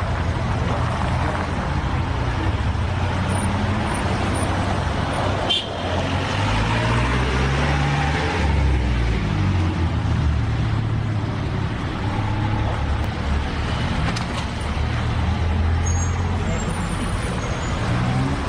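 Street traffic noise: a steady rumble of idling and passing car engines.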